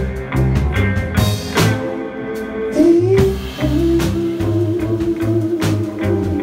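A small rock band playing live: electric guitars over a drum kit with regular cymbal crashes, and a long held note through the middle.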